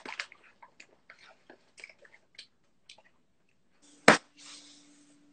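Vanilla wafers being chewed close to a phone's microphone: a run of small crunches. About four seconds in comes a single loud knock.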